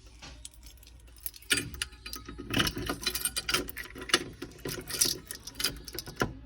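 Irregular metal clicks and rattles of a fire alarm pull station being reset by hand, beginning about a second and a half in.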